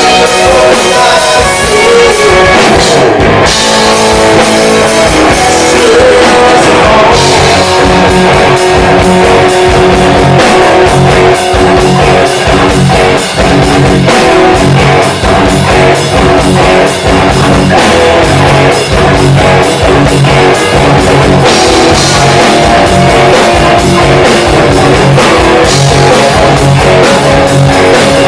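Rock band playing live: distorted electric guitar with bending, held notes over a steady drum-kit beat.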